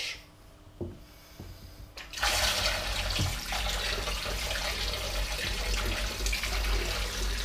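A kitchen tap is turned on about two seconds in and runs steadily, the water splashing over the blender's blade top being rinsed into a stainless steel sink. A couple of faint knocks come before the water starts.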